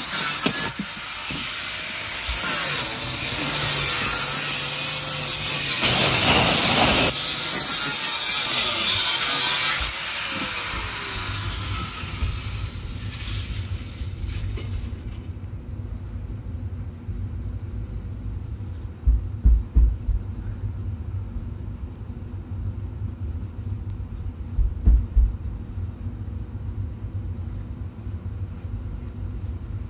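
A saw cutting through the wooden floor structure between joists, loud and rasping, stopping about a third of the way in. A low rumble follows, with two short clusters of thumps.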